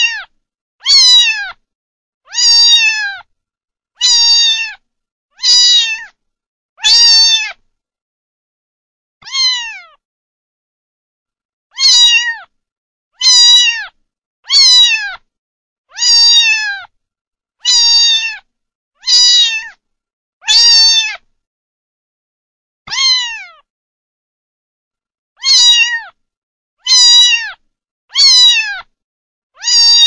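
Kitten meowing over and over, about one meow every second and a half with a few longer pauses, each call high and dropping in pitch at its end.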